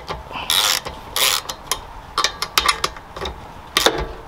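Socket ratchet wrench with an 8 mm socket clicking in a string of short, irregular bursts as the handle is swung back and forth, loosening bolts.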